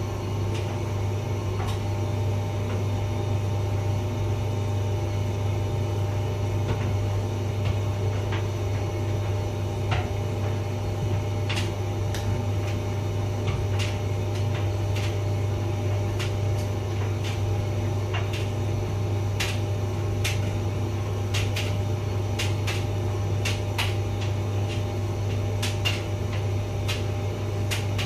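Hotpoint vented tumble dryer running: a steady motor and fan hum, with irregular sharp clicks and taps that grow more frequent in the second half.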